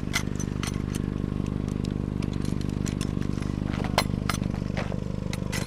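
Engine idling steadily, with scattered light clicks and knocks of junk being handled, one sharper knock about four seconds in.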